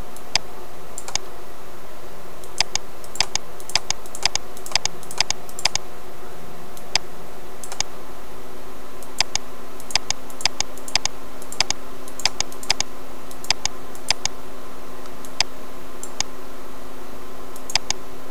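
Computer mouse clicking in quick, irregular single and double clicks, ticking off file-type checkboxes one after another, with a few short pauses. Underneath is a steady hum.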